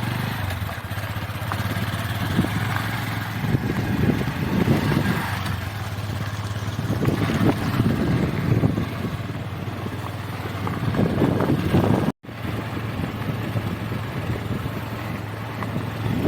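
An engine running steadily with a low hum, its level surging up and down irregularly. The sound cuts out for a moment about twelve seconds in and then carries on.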